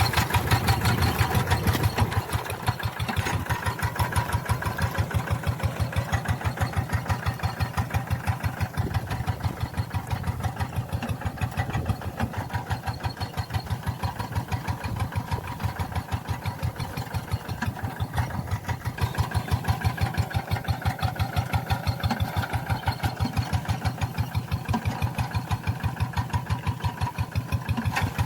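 Tractor engine running steadily at idle, a rapid even pulse of firing strokes.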